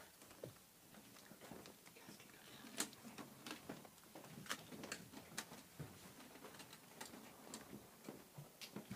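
Near silence: faint room tone with scattered small clicks and light knocks from people moving about the stage and handling instruments and a microphone.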